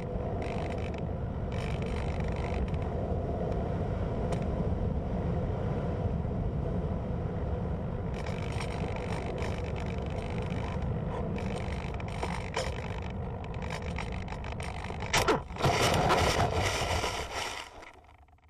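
Wind rushing over the onboard camera of a gliding Hobbyking Cloud Surfer RC foam plane, its motor stopped. About fifteen seconds in, a sudden hit and then a loud scraping for about two seconds as the plane touches down and skids through the grass, fading out near the end.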